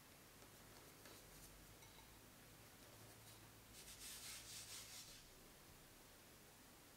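Near silence, then about four seconds in a hand spreads flour across a countertop: a soft rubbing swish lasting about a second.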